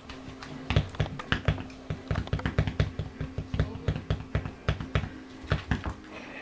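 Two kittens' paws and claws tapping and scrabbling on a wooden floor and a rattan table frame as they play-fight: quick, irregular clicks starting under a second in and stopping near the end.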